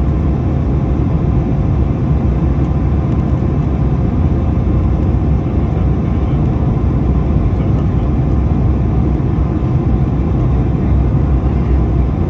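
Swiss Airbus A220-100 landing, its Pratt & Whitney PW1500G geared turbofans giving a steady low rumble with a faint, even whine.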